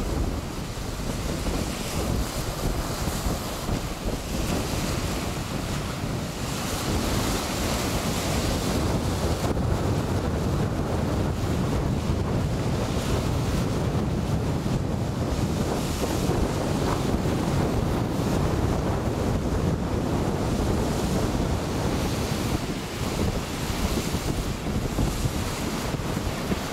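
Wind buffeting the microphone over a steady rush of waves and water at sea, with no distinct engine note standing out.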